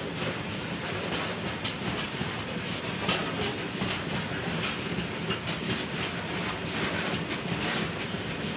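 Train running on the rails: a steady rumble with frequent short clicks of the wheels over the track.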